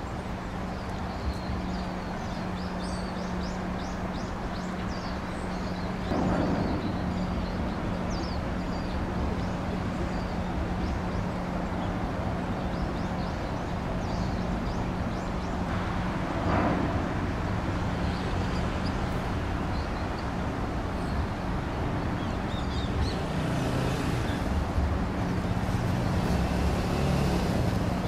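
Outdoor ambience at the water's edge: a steady low hum under a wash of background noise, with small birds chirping repeatedly. Two louder swells of noise come about six seconds in and again about sixteen seconds in.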